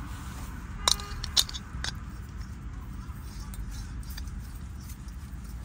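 Small metal clinks and clicks as a camping stove is fitted and screwed onto a gas canister: three sharp clinks in quick succession about a second in, then fainter ticks. A steady low rumble of road traffic runs underneath.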